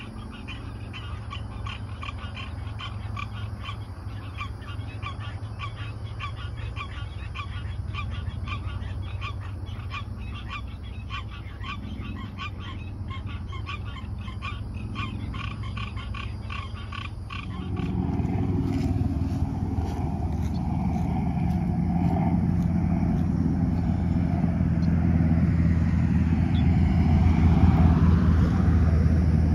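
Frogs calling at the lake edge, a steady run of short repeated calls. More than halfway through this cuts to a motor vehicle's engine rumble that grows louder toward the end.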